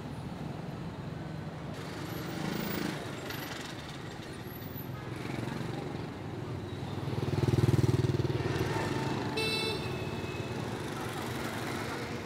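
Busy street traffic with motorbikes and cars passing close. One engine swells loudest about seven to eight seconds in, and a short horn toot sounds soon after.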